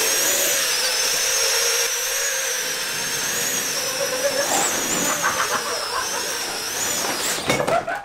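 Electric ducted fans on a modified Roomba robot vacuum running with a high-pitched whine that wavers slightly in pitch. The whine stops about seven seconds in, among a few sharp knocks.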